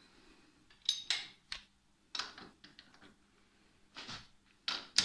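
Metal clicking and clacking from the Cazeneuve HB 575 lathe's four-way toolpost as its clamping lever is worked by hand: about eight sharp clacks at irregular spacing, the loudest near the end.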